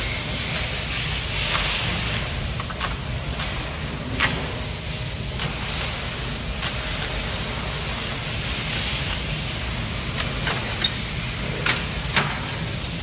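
Steady low workshop hum with a handful of short, sharp clicks and clacks from a Konica Minolta bizhub C308 copier's parts and a hand tool being handled as the machine is taken apart.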